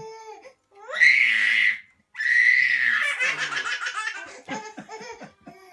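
Babies squealing and laughing: two loud high shrieks about a second and two seconds in, then a run of quick giggles.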